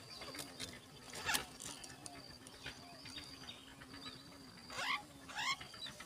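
Yellow-vented bulbul nestlings begging in the nest: a pair of quick rising call notes near the end, with a short sharp rustle about a second in. A faint steady high-pitched drone runs underneath.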